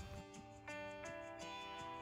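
Soft background music with ringing notes, a new note entering about half a second in and another about a second in.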